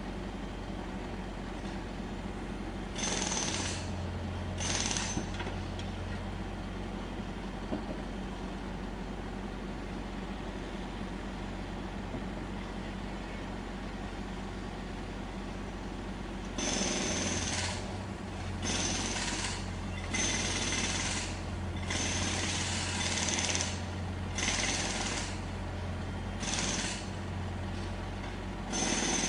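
Jackhammer breaking up road surface in short bursts over the steady low hum of a running engine. There are two brief bursts about three seconds in, then, from about halfway through, a run of bursts about a second long with short pauses between them.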